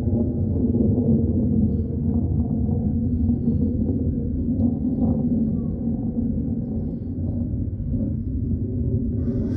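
A steady low rumbling drone coming from the sky, of unidentified origin, which repeats for hours. A brief higher sound is heard near the end.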